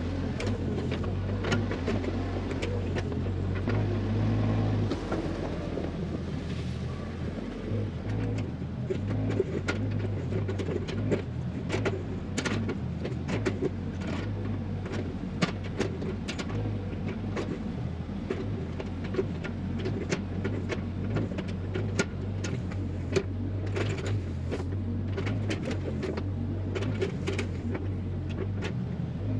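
Compact construction machine's engine running steadily with an even low drone, with many short sharp clicks and clanks over it.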